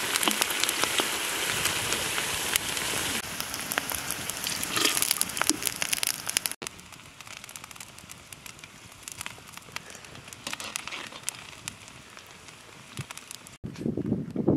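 Sliced onions frying in hot oil in a large cauldron: a loud, dense sizzle full of crackles. About six and a half seconds in it drops to a much quieter sizzle with crackling from the wood fire beneath the pot.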